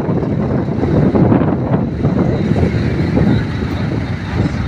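Pickup truck driving on the road, its engine and road noise heard from inside the cab as a loud, steady noise.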